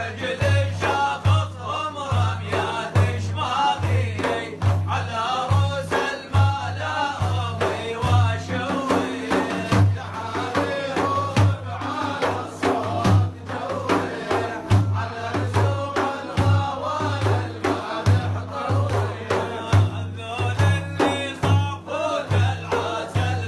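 Male praise singer (maddah) singing a religious song with a wavering melody over a steady, deep drum beat.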